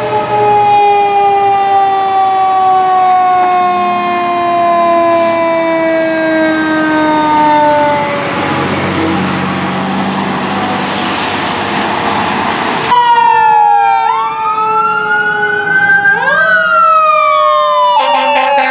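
Fire engine siren winding slowly down in pitch as the truck passes, then a few seconds of truck engine and tyre noise on a wet road. After a cut, another fire truck's siren sweeps up and down in wails.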